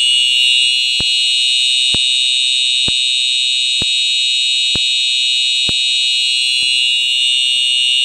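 Simplex 4903-9426 TrueAlert horn-strobe sounding a loud, steady, high-pitched electronic horn tone without a break, set off by a manual pull station. A faint tick about once a second is the strobe flashing.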